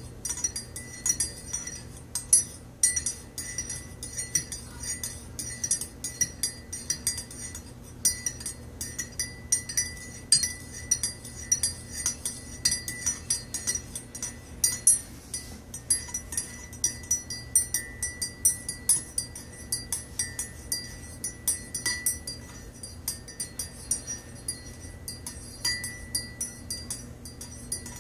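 Metal teaspoon stirring coffee in a ceramic mug, clinking against the inside of the cup a few times a second in an uneven, continuous rhythm.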